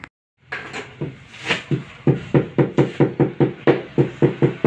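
Rubber mallet tapping a large floor tile down into its bed of tile adhesive to seat and level it. A few scattered knocks come first, then about two seconds in a quick, steady run of dull knocks, about four or five a second.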